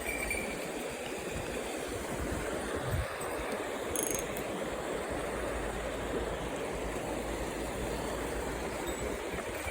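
Mountain stream running over rocks, a steady rush of water, with a brief click about four seconds in.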